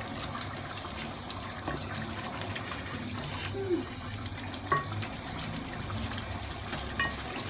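Chicken karahi gravy bubbling and sizzling in a metal pot while a spatula stirs it, with scraping and two brief clinks of the spatula against the pot, one near the middle and one near the end.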